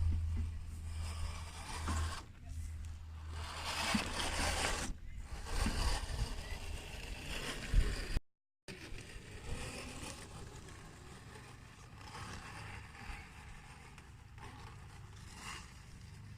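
Scale RC rock crawler driving over rough terrain: its small electric drivetrain running, with scraping noise from the tyres and chassis on the ground. The sound cuts out for a moment about eight seconds in, then goes on quieter.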